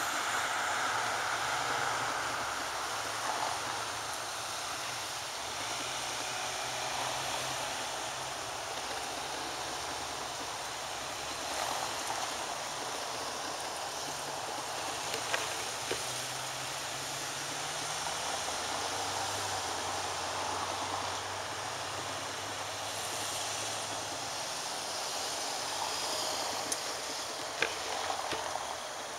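Steady road-traffic noise, with low engine hum rising and falling as vehicles pass and a car going by near the end.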